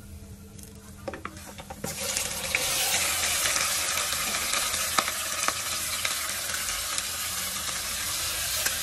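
Metal ladle clinking and scraping in a stainless steel pot of garlic frying in oil. About two seconds in, pieces of sea fish go into the hot oil and a loud, steady sizzle starts, with occasional clinks of the ladle against the pot.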